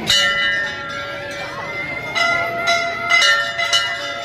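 Hanging brass temple bells struck by hand: one clang at the start, then several more in quick succession from about halfway through, their ringing tones overlapping and sustaining between strikes.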